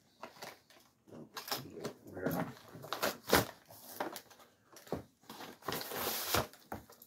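Clear plastic blister bubble and cardboard backing card of a boxed action figure being cut and pulled apart: irregular crinkling and crackling of the plastic with scattered clicks and snaps, densest about six seconds in.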